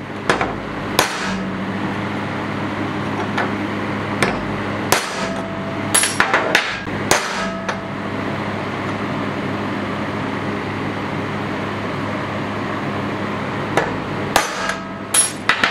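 Ball-peen hammer tapping a punch on steel armor plates: sharp metal taps in a few clusters, some leaving a brief ring, with a pause of several seconds in the middle. A steady low hum runs underneath.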